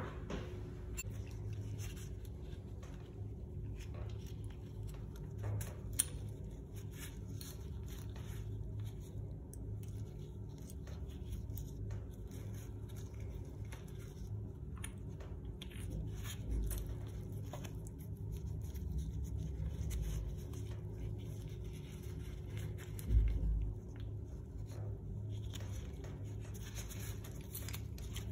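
Small clicks, scrapes and light knocks of gloved hands handling a chrome Sloan flush valve and its parts, over a steady low hum. There is a sharp click about six seconds in and a louder knock a little past twenty seconds.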